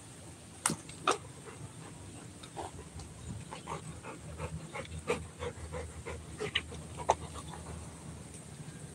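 Rottweiler panting in short, even breaths, with two sharp clicks about a second in.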